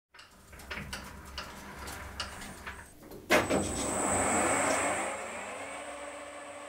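Colchester lathe running with light clicks, then, about three seconds in, a freshly fitted carbide insert on a boring bar bites into the bore with a sharp start, a dense cutting hiss and a steady high whine. The cut is loudest just after it starts and eases off toward the end.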